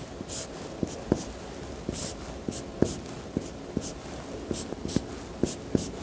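Marker pen drawing short dashes on a whiteboard: a brief scratchy stroke and a light tap of the tip for each dash, about two a second.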